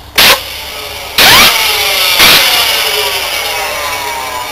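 Short blasts of compressed air from a blow gun spin up a small centrifugal blower motor. The motor then coasts down with a whine that falls steadily in pitch. Its bearings sound worn, "a bit sad".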